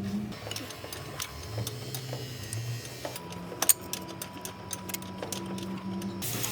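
Scattered light metallic clicks and ticks of small metal parts or tools being handled, with one sharper click midway, over a low steady hum.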